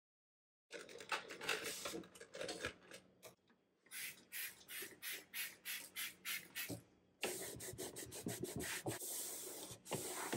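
A clear plastic pack of paper air fryer liners being handled, rustling. Then a trigger spray bottle sprayed repeatedly, about three squirts a second. Then a cloth wiping a cabinet shelf.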